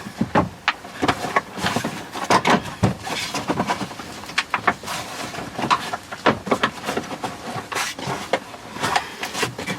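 Irregular clicks, knocks and rattles of the plastic console and shifter parts being handled and worked into place by hand.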